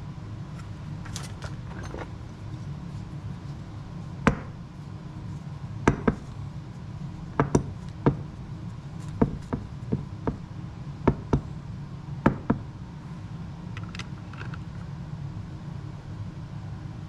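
Sharp clicks and knocks, about a dozen at irregular intervals from about four seconds in, from the plastic monitor, bracket and antenna of a backup-camera kit being handled and fitted together, over a steady low hum.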